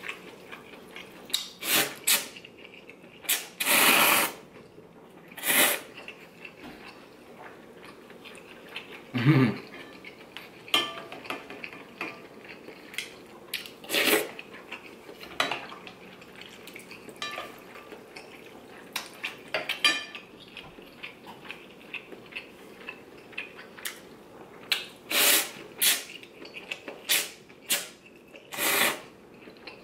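Person slurping ramen noodles and broth in repeated loud bursts, the longest about four seconds in, with small clicks of chopsticks and spoon against the bowl between slurps.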